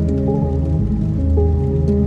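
Slowed ambient music with held chords and a deep sustained bass, over a crackling fire with a few faint scattered pops.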